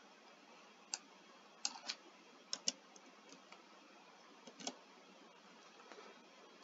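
Computer keyboard keystrokes: about ten scattered, faint clicks, several in quick pairs, over a low room hiss.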